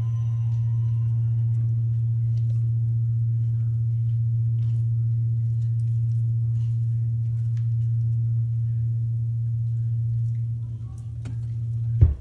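Steady low hum from the turntable's playback chain once the song has faded out, with no music left over it. Near the end a single thump, after which the hum cuts off abruptly.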